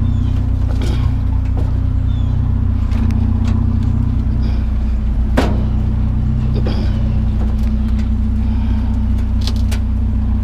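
Truck engine idling with a steady low drone, with scattered knocks and clanks of metal scrap being shifted into the bed; one sharp knock about five seconds in.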